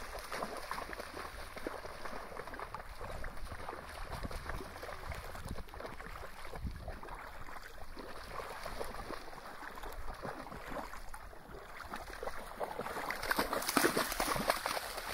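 Dogs splashing as they run through shallow seawater, their paws slapping the water in quick, irregular splashes. The splashing grows louder near the end as a dog runs close by.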